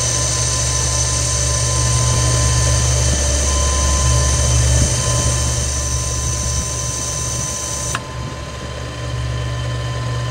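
13x40 manual metal lathe running under power while turning a taper on a 304 stainless steel handle between centres. It gives a steady machine hum with a few fixed whining tones. The higher hiss drops away suddenly about eight seconds in.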